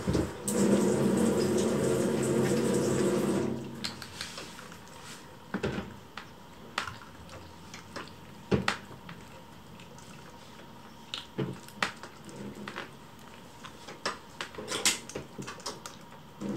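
Kittens eating from bowls, with soft wet chewing and scattered small clicks and clinks. A rush of running water covers them at first and cuts off about three and a half seconds in.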